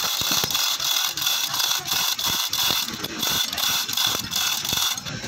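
Manual chain hoist being hauled up by its hand chain, with the chain rattling and clinking and the hoist ratcheting in quick, repeated strokes as it lifts a heavy stack of truck leaf springs.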